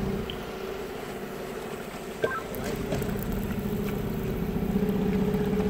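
Small work boat's engine running steadily, an even low pulsing under a constant hum, with a single sharp click about two seconds in.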